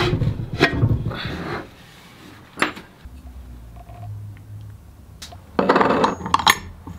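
Hands handling and fitting motor parts on a workbench. There is a clatter of plastic and metal parts at the start, a single click partway through, and a louder burst of metallic clinks and clatter near the end as a stainless-steel shaft adapter is fitted onto a brushless motor.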